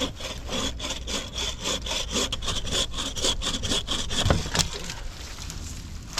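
Hand saw cutting through wood in quick back-and-forth strokes, about three to four a second, which stop a little under five seconds in.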